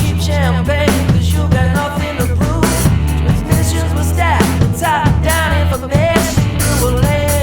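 Rock song with a sung lead vocal over drums and bass.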